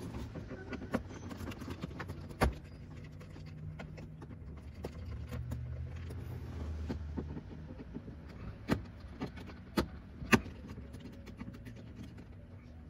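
Scattered small clicks and a few sharper knocks of hand tools and plastic trim as the panel under a car's steering wheel is unscrewed and worked loose, over a low steady hum.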